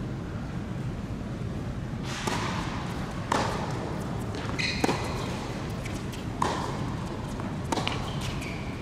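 Tennis rally on an indoor hard court: sharp racket hits and ball bounces about every one and a half seconds, starting about two seconds in, with short squeaks of shoes on the court twice, over a low hum of the hall.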